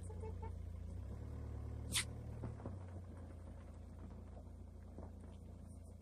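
A vehicle engine running with a low, steady rumble that slowly fades. One sharp click comes about two seconds in.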